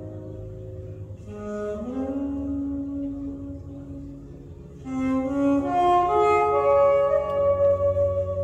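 Recorded instrumental music played back over a hi-fi demonstration system: held, melodic notes, soft at first and swelling louder about five seconds in.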